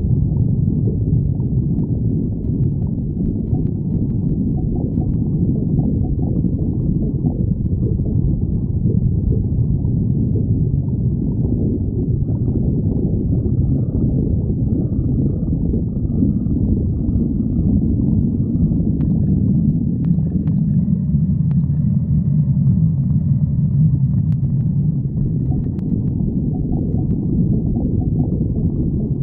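Human stomach growling from hunger: a low rumbling and gurgling without a break, settling into a deeper rumble for several seconds past the middle.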